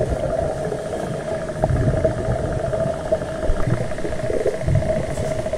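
Muffled underwater noise: a steady droning hum with a fast fine flutter, over low irregular rumbling of water moving around the microphone.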